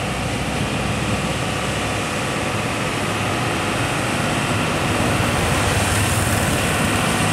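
Hino 500 tronton truck's diesel engine running as the truck approaches, the steady low engine note growing gradually louder over the second half.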